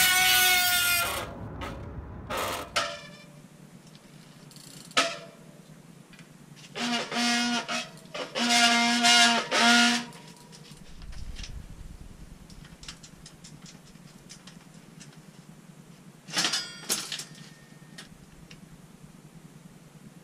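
Bicycle brakes squealing as the wheel is braked, the sign of the brake squeal the video sets out to cure. There is a high squeal at the start, a run of lower honking squeals about seven to ten seconds in, and a short squeal near seventeen seconds.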